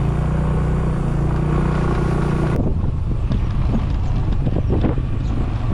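A small motorcycle engine running steadily under the noise of the ride. About halfway through it cuts off abruptly, giving way to an uneven low rumble with scattered knocks.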